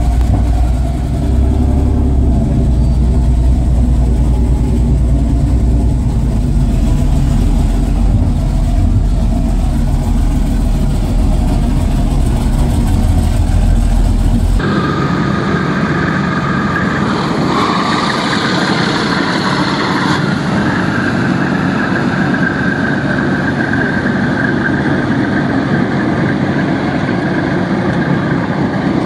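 Large unsilenced petrol or diesel engines of a restored 1940s–50s motor torpedo boat running loud and steady with a deep, heavy throb. About fifteen seconds in, the sound cuts to a boat's engine heard underway on the water, with less bass and a steady whine above the engine note.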